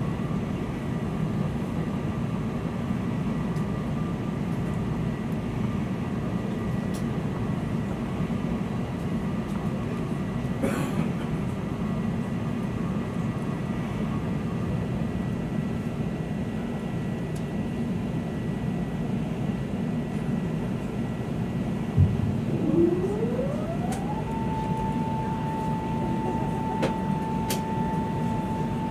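Steady low rumble inside an Airbus A380's cabin, with faint steady tones over it. About 22 seconds in there is a thump, then a whine that rises in pitch over a couple of seconds and then holds steady.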